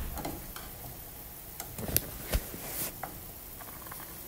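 A metal ladle stirring soup in a stainless steel pot, clinking and knocking against the pot several times in the first three seconds, loudest about two seconds in, over the soft bubbling of the simmering broth.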